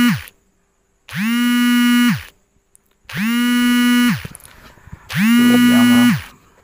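Electronic buzzer beeping in a steady pattern: a low, buzzy tone about a second long, repeating every two seconds, each beep sliding up in pitch at its start and down at its end. The tail of one beep is followed by three full beeps.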